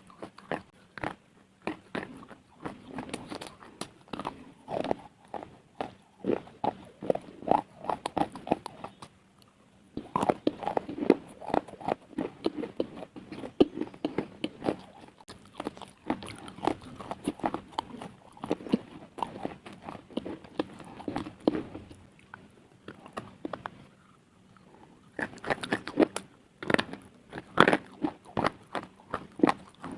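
Close-up biting and chewing of brittle slate pieces: dense runs of sharp, gritty crunches, with two short lulls, about a third of the way in and again a little after two thirds.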